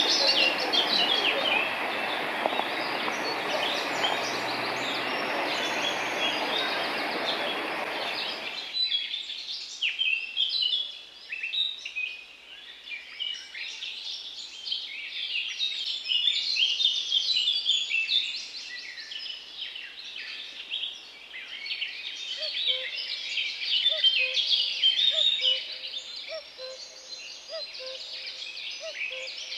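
Water from a small stream rushing over rocks, cutting off suddenly about nine seconds in. Then many songbirds chirping, with a lower call repeating in short notes over the last several seconds.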